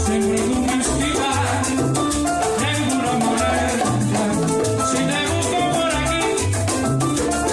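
Cuban son/salsa band music: a steady high shaker pulse over a repeating bass line and pitched melodic instruments.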